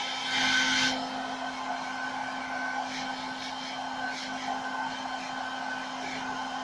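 Handheld electric hair dryer running steadily, its motor humming under the rush of blown air, briefly louder in the first second.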